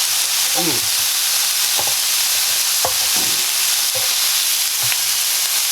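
Chicken breasts sizzling steadily in a frying pan, just turned to cook their second side, with a few light knocks.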